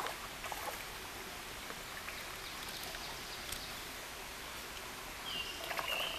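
Steady rush of a shallow stream flowing, with splashing near the end as a hooked trout thrashes at the surface.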